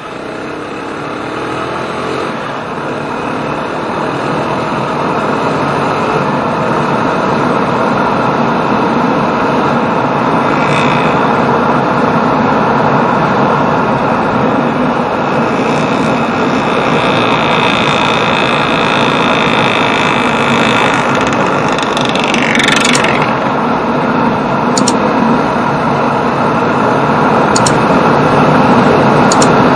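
Yamaha Jupiter MX 135 motorcycle under way, its engine pitch rising as it gathers speed at the start and then running steadily, with a heavy rush of wind and road noise. A brief high sliding sound breaks in about two-thirds of the way through.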